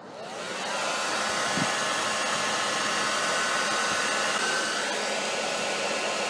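Handheld hair dryer blowing, coming up to full speed over the first second and then running steadily with a faint whine, warming a steel test blank.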